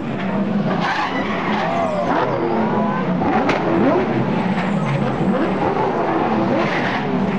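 Several V8 Ute race utes braking hard into a corner, their V8 engines changing down with pitch sliding up and down, and tyres squealing as a ute locks its wheels under braking. A sharp crack sounds about three and a half seconds in.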